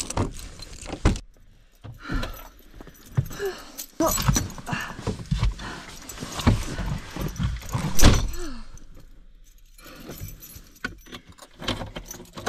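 Keys jangling among irregular knocks and rustling as gear is handled in a truck cab. Near the end a hand is at the ignition with the keys.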